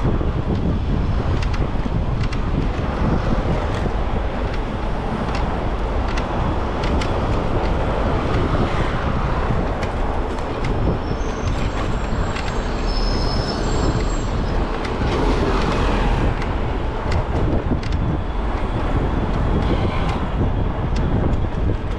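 Riding an e-bike through city traffic: steady wind and road noise on the microphone, with many small rattles and knocks from the bike. A few short high-pitched tones sound about halfway through.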